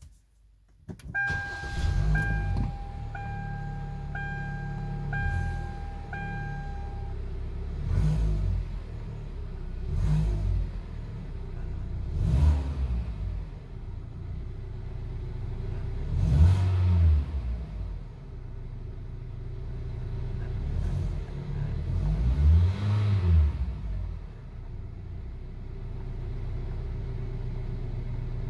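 A 2011 Kia K5's four-cylinder engine and exhaust start about a second in and settle to idle. A dashboard warning chime pings about once a second for several seconds. The engine is then revved in five short blips that rise and fall, with idle between them, and it idles steadily near the end.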